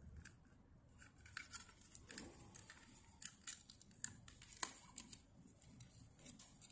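Faint clicks and light scraping of fingers handling an opened plastic dimmer housing and its circuit board, with one sharper click about four and a half seconds in.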